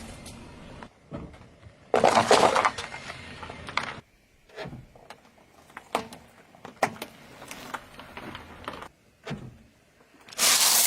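Objects crunching and cracking as they are crushed under a car tyre. There is a loud crunch lasting about two seconds starting about two seconds in, then a run of separate sharp cracks and snaps, and another loud crunch near the end.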